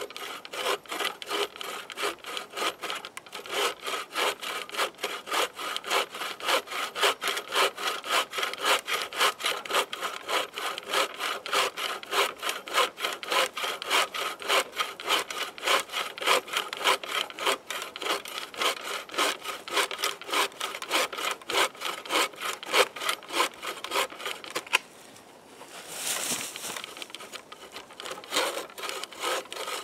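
Homemade bucksaw with a fresh-cut white spruce frame cutting through an old piece of wood in steady back-and-forth strokes, about two to three a second, with a short pause about 25 seconds in. Its blade is not under enough tension and buckles on the push stroke.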